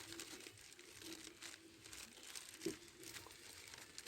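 Faint crinkling and rustling of something being handled, with a soft knock about two-thirds of the way through.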